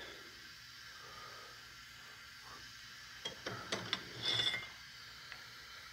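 Quiet room tone, then a quick run of short metallic clicks and clinks about three to four and a half seconds in. The cast-iron clutch slave cylinder and its parts are being handled and taken out of a bench vise.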